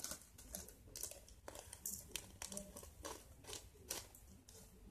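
Faint crinkling of a small plastic packet of sequins being handled and picked open, with scattered light clicks and ticks.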